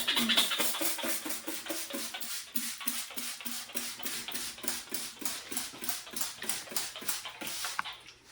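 Kitchen roll being rubbed back and forth over shower-door glass: rapid squeaky wiping strokes, about four a second.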